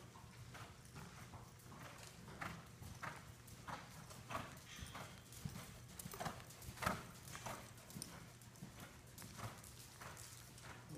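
Hoofbeats of a cantering palomino horse on sand arena footing: a steady run of faint thuds about every two-thirds of a second, one stride after another, strongest about seven seconds in.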